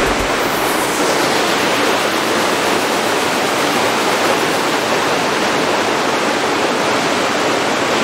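Steady rush of water pouring and splashing over rocks in a small stream cascade.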